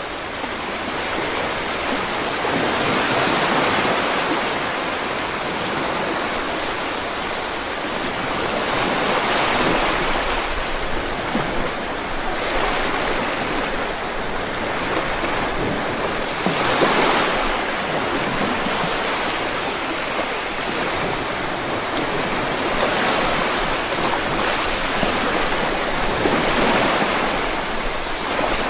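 Steady rain falling, a dense even hiss that swells and eases gently every several seconds.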